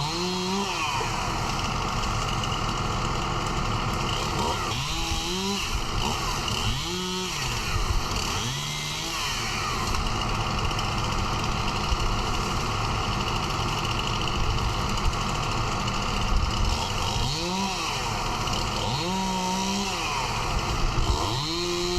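A small engine revs up and back down in about seven short bursts, each rising and falling within a second or so. Under it, a steady engine keeps running.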